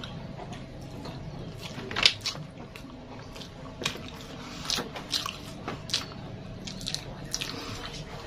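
Close-up eating sounds: wet chewing and lip smacks over a mouthful of rice, egg and tofu, with fingers squishing rice against the plate. Short irregular smacks about once a second, the sharpest about two seconds in.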